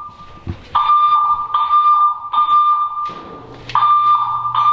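Building fire alarm sounding: a steady high electronic tone with a pulsing buzzy horn, in blasts of about two seconds separated by short pauses, one pause at the start and another about three seconds in.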